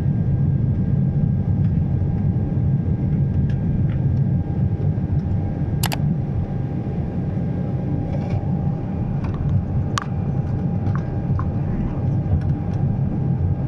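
Steady low rumble of a Boeing 767-400's engines and airflow, heard inside the economy cabin, with a faint steady hum. A couple of sharp clicks stand out, one about halfway through and one a few seconds later.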